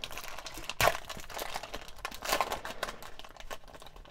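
Foil wrapper of a trading-card booster pack crinkling and tearing as hands pull it open, with one loud sharp crackle about a second in and another loud crinkle a little past halfway.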